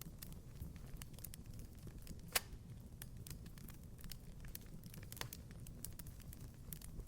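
Wood fire crackling in a fireplace: scattered small pops over a low steady rumble, with one sharp loud pop about two and a half seconds in and another about five seconds in.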